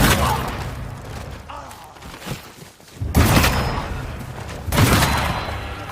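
Tanzutsu matchlock pistol firing three loud shots: one at the start, one about three seconds in and one just before five seconds, each followed by a long fading rumble.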